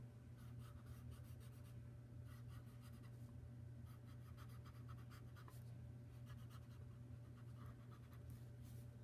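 Faint scratching of a pencil tip stroking back and forth on paper as an image is shaded in, over a steady low hum.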